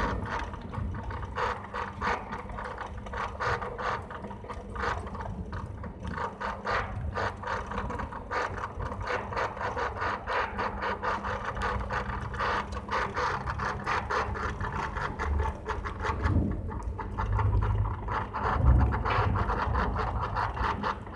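Sliding-gate operator motor running, its pinion driving the gate's toothed rack with a rapid, steady clicking rattle over a hum. Low thumps come in near the end.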